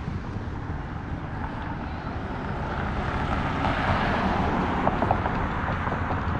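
An SUV drives past close by on the street; its tyre and road noise swells about two and a half seconds in, is loudest around four to five seconds, and then eases off, over a steady low outdoor rumble.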